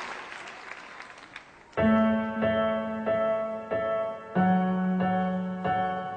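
Applause dying away, then a piano begins a song's introduction, striking a chord about twice a second.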